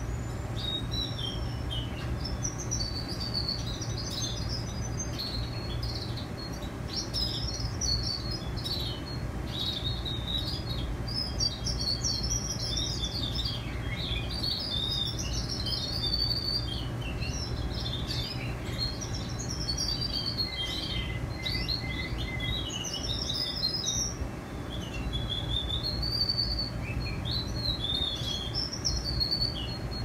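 Young male Russian canaries singing: a near-continuous run of high chirps, trills and warbling glides, over a steady low hum.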